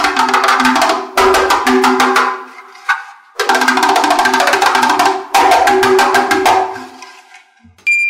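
Music: a rapid run of wood-block and drum hits over a few steady tones, in two phrases with a short break about three seconds in.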